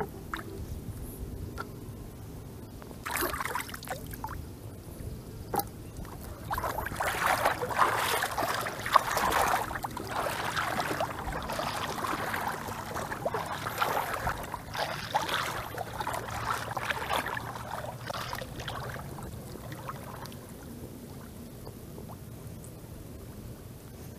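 Shallow water splashing and sloshing as people wade and handle a fishing net, with a few sharper splashes. The busiest stretch comes in the middle, and the splashing dies down near the end.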